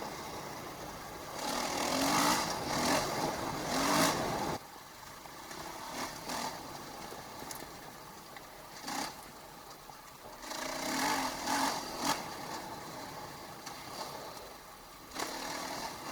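KTM 500 EXC single-cylinder four-stroke enduro engine running under changing throttle. It rises in louder bursts and drops back in between, with a sudden cut-off about four and a half seconds in.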